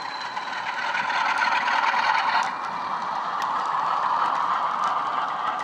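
Bachmann Class 47 model locomotive's factory-fitted sound decoder playing the Sulzer diesel engine sound through its small speaker, loudest as the locomotive passes about two seconds in. After that, the model wagons' wheels click on the track.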